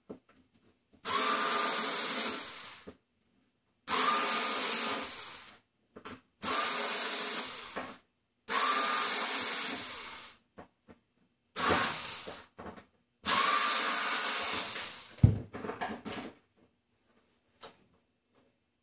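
Cordless drill/driver backing out wood screws from a grand piano lid's hinge: six short runs of the motor, each one to two seconds long with brief pauses between. A sharp knock about fifteen seconds in is followed by a few light clicks.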